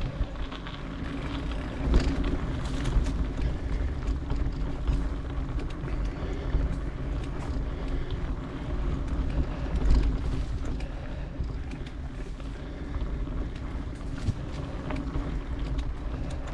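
Mountain bike rolling along a dirt singletrack, heard from a bike- or helmet-mounted action camera: wind buffets the microphone over a steady rumble of the tyres on dirt, with scattered clicks and knocks from the bike and trail.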